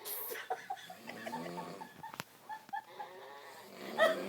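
Snoring, replayed in a high, squeaky voice by the Talking Tom Cat app, so that it sounds like an animal's cries. There is a louder burst about four seconds in.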